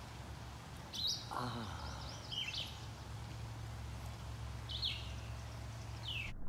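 A small songbird chirping in short, quick, falling calls, four times over a few seconds, above a steady low hum.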